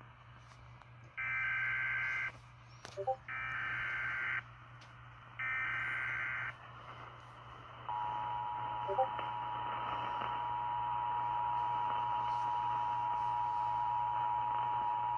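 Emergency Alert System tones: three one-second bursts of the buzzy digital SAME header, then a couple of seconds later the steady two-tone EAS attention signal, which keeps sounding. They herald a National Weather Service tornado warning.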